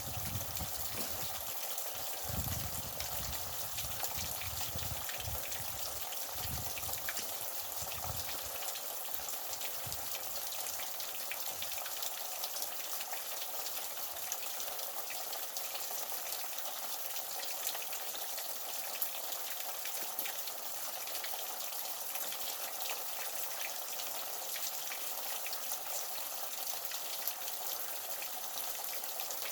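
Falling, splashing water making a steady patter like rain, with many small drips and ticks through it. Irregular low bumps and rumbles come through during the first several seconds.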